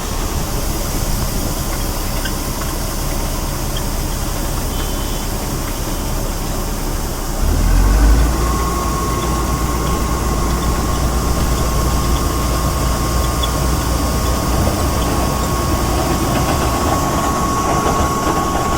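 Combine harvester running: steady machine noise. About seven seconds in a deeper rumble comes in, and from about eight seconds on a steady high whine runs alongside it.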